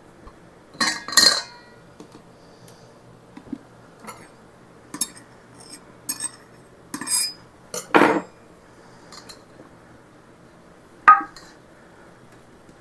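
Scattered clinks and knocks of a measuring cup and a mesh flour strainer against a glass flour canister and a stainless steel mixing bowl as flour is scooped and sifted. There is a pair of knocks about a second in, smaller taps through the middle, and sharp ones about two-thirds of the way through and near the end.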